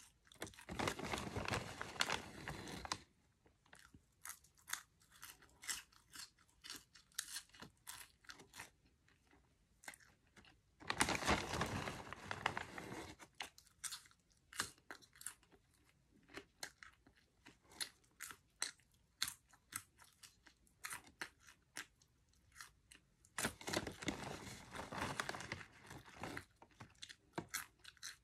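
Close-up crunching and chewing of cheddar cheese popcorn: many sharp, crisp crunches, with three denser stretches of crackling a few seconds long, near the start, around the middle and near the end.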